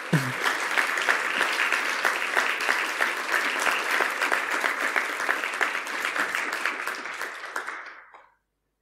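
Audience applauding: many people clapping together, the applause dying away and stopping near the end.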